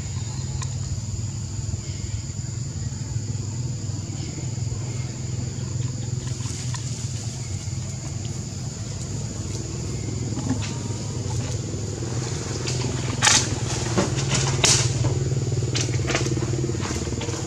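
A steady, low motor-like drone with a constant high whine over it. A few sharp crackles come near the end.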